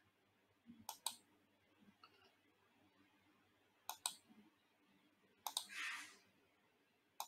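A few faint, sharp clicks, mostly in quick pairs, about a second in, around four seconds and around five and a half seconds, with a short hiss just after six seconds, over faint room tone.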